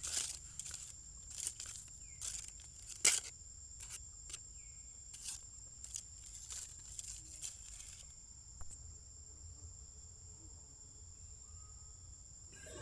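Outdoor ambience of insects: a steady high-pitched drone with a scattering of short, sharp high chirps.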